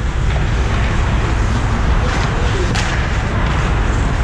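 Ice hockey game sound in an arena: steady noise over a deep rumble, with a few sharp clacks of sticks and puck, two of them about two and three seconds in.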